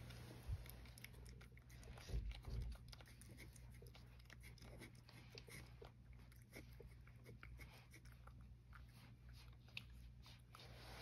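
A cat chewing food from a small ceramic bowl: faint, quick, irregular clicks of eating, with a few soft low thumps about half a second and two seconds in.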